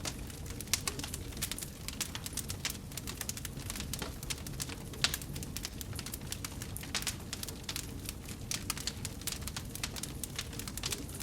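Wood fire burning in a fireplace: a steady low rumble of the flames with dense, irregular crackling and popping of the logs, and a few louder pops about one and five seconds in.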